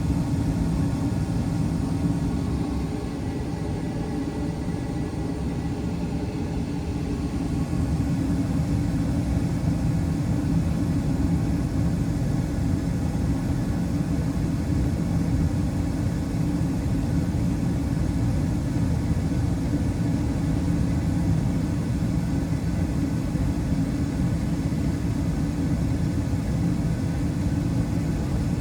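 2019 Carrier Performance Series gas furnace running through its startup, its draft inducer fan motor and burners making a steady low rumble that dips slightly for a few seconds before coming back up. The owner judges it to be running normally: inducer spinning freely and flames stable.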